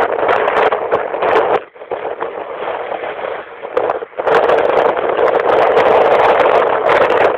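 Strong wind buffeting the microphone on a fishing boat, a loud rushing noise that eases for a couple of seconds partway through and then comes back.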